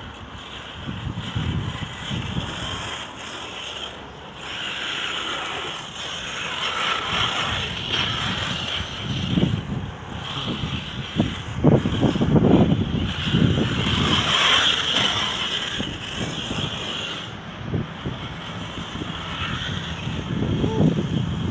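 HPI Apache radio-controlled truck running over a dirt track, getting louder and fainter as it passes, with low gusty rumbling that is strongest about halfway through.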